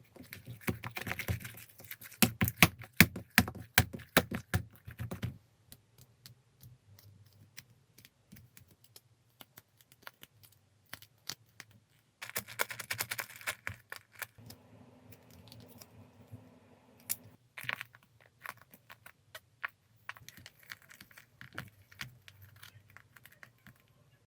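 Hands working nano tape and craft materials: rapid crackling clicks and rustles in dense bursts, with sparser handling noises between them.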